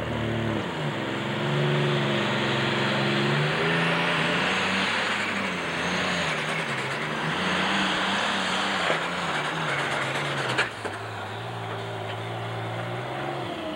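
John Deere 4320 Super Stock pulling tractor's alcohol-burning engine running hard under full load down the track. About ten and a half seconds in, the sound drops off sharply to a lower running note as the pull ends. The engine never fully came on, and it would not pick up the fuel and build power.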